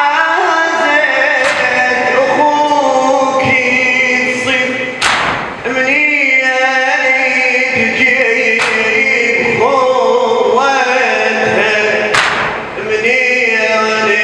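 A group of men chanting a Shia latmiyya (mourning lament) together, holding long wavering notes, with sharp slaps every few seconds.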